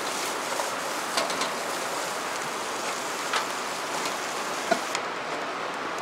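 Yakisoba vegetables and meat sizzling in a large pan over a wood fire: a steady frying hiss with a few scattered pops.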